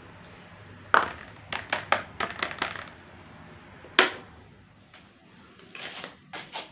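Plastic trays of setting hide glue knocked down onto a wooden table, then a quick run of plastic clicks and taps. About four seconds in, a desk fan's push-button switch clicks sharply and the low hum under the scene eases; a few soft taps follow near the end.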